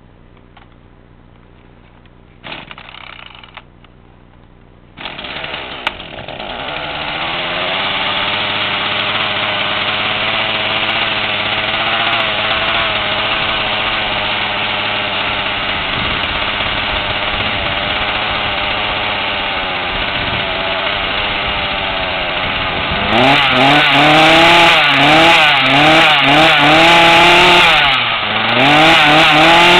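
Troy-Bilt 40cc two-stroke chainsaw being started: a short burst of engine noise about two and a half seconds in, then it catches about five seconds in and idles steadily. From about 23 seconds on it is revved up and down several times, the pitch rising and falling with each rev.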